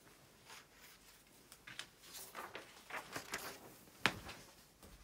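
Quiet rustling and scraping of a paper poster and tape being pressed onto a wall by hand, with a sharp knock about four seconds in.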